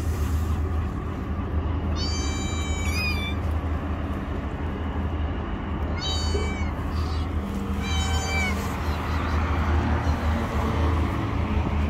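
Kittens meowing: three high-pitched meows, about two, six and eight seconds in, the first the longest. A steady low rumble runs underneath.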